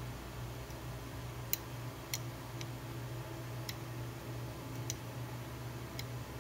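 Small slide switches on an FPGA development board being flipped by fingers: about six short, sharp clicks at uneven intervals over a low steady hum.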